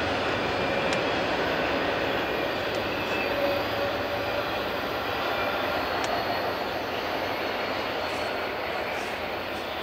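Freight train of autorack cars rolling away on the rails: a steady rumble and rush of wheels on track that slowly fades as the rear of the train recedes.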